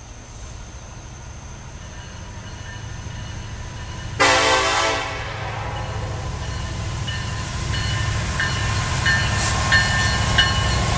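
An approaching freight train led by a Canadian National SD70M-2 diesel locomotive, its low engine rumble growing steadily louder. About four seconds in, the locomotive's air horn gives one short blast, under a second long.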